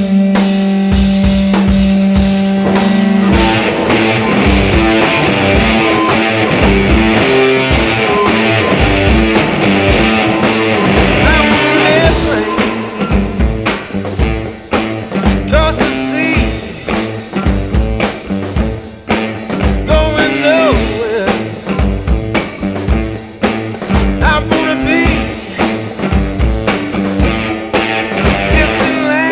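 Rock-blues music with guitar and a drum kit keeping a steady beat. About twelve seconds in, the texture changes and bending melody lines come in.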